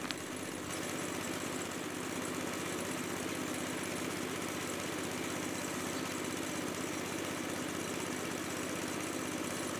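Compressed-air paint spray gun hissing steadily as it sprays a car bumper, with an air compressor running steadily underneath.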